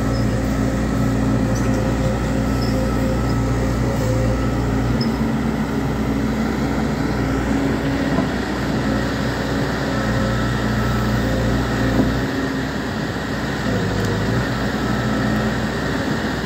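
Volvo EC210D crawler excavator's diesel engine running steadily under load as the machine tracks up a rocky dirt ramp. The engine note dips briefly about fourteen seconds in.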